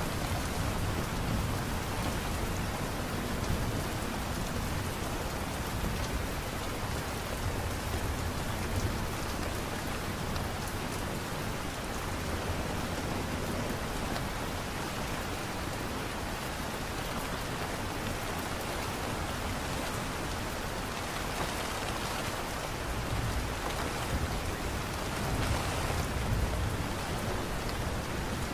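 Steady light rain falling on a surface, with a patter of drops and a low rumble that swells a little now and then.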